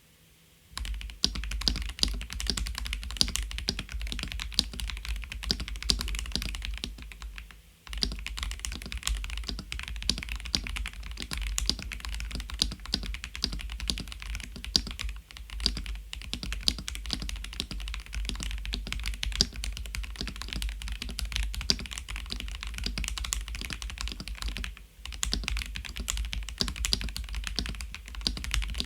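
Stock Dukharo VN66 mechanical keyboard, with poron foam under and above the PCB, being typed on rapidly and continuously: a dense run of clacking keystrokes, broken by brief pauses about eight seconds in and near the end.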